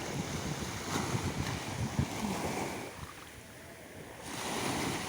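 Small sea waves washing in on a very calm sea, flat 'like a pond', mixed with wind buffeting the microphone. The noise drops for about a second a little past halfway, then rises again.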